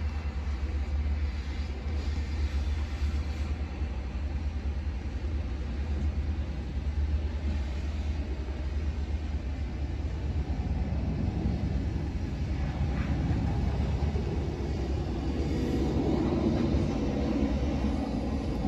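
Airbus A330-300 airliner's jet engines, a distant low rumble that swells and grows louder in the second half as the plane comes closer overhead.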